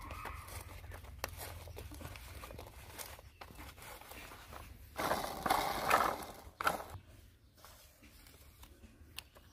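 Small plastic clicks and knocks as a toy dump truck's wheels are handled and pushed onto its axles. A louder scraping rustle takes over for a second or two about five seconds in, ending in a sharp click.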